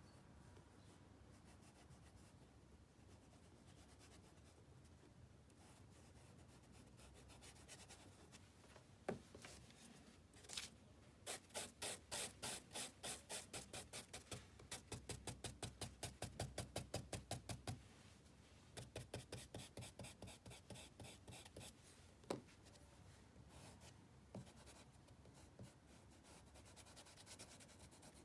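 Charcoal on paper: faint rubbing, then a brush scrubs the charcoal in a long run of quick, even back-and-forth strokes, about three to four a second. After a short pause come more strokes and a couple of sharp taps, and the rubbing turns faint again near the end.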